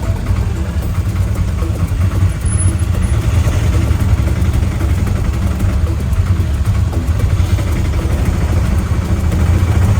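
Tuk-tuk (auto-rickshaw) engine running steadily under a heavy low rumble, heard while riding.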